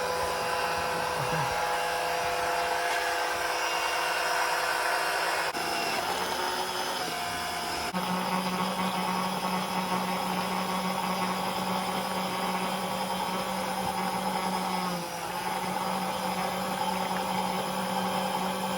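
12-volt electric oil extractor pump running steadily as it sucks engine oil up out of the sump through the dipstick tube. Its tone changes a couple of times.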